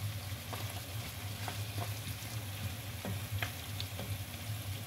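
Pieces of meat sizzling in oil in a frying pan as they brown, stirred with a wooden spatula that gives light scrapes and taps against the pan now and then. A steady low hum runs underneath.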